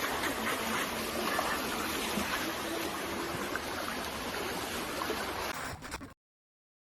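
Steady rushing water-like noise with a faint hum coming and going, cutting off abruptly to silence about six seconds in.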